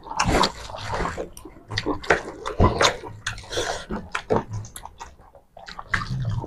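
Close-miked eating by hand: wet chewing and mouth smacks mixed with fingers squishing rice and curry on a plate, in irregular clicks and smacks.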